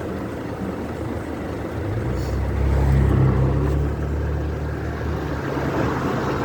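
Engine and road noise of a moving car, with a louder low engine drone from about two seconds in until about five and a half seconds.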